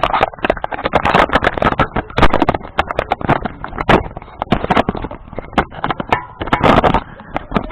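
Ceiling fan spinning with a GoPro mounted on it: loud, rapid, irregular clicking and rattling over a low rumble.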